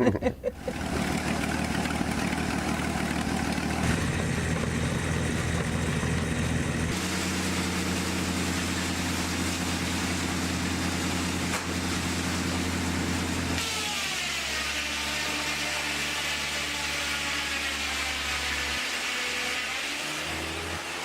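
Ford 300 straight-six truck engine running steadily as the sawmill's power unit. The sound changes abruptly a few times. In the last third a higher whine drifts up and down in pitch over the engine.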